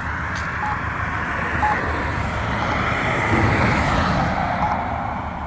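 Road traffic passing through the intersection, with a vehicle swelling past loudest about three to four seconds in. Under it, the crosswalk button gives a short locator beep about once a second.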